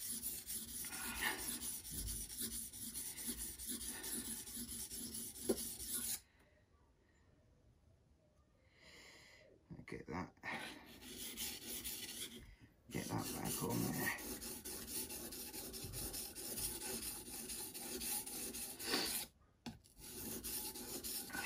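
A Mora Companion knife's Scandi-ground steel blade is stroked back and forth on a wet whetstone, giving a steady gritty rasp of steel on stone. The strokes stop for a few seconds about a third of the way in, come back in scattered scrapes, then run steadily again with a brief break near the end.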